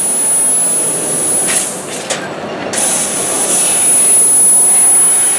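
Steady loud workshop machinery noise with a thin high whine over it; about two seconds in it drops for half a second, the high hiss cutting out, then comes back.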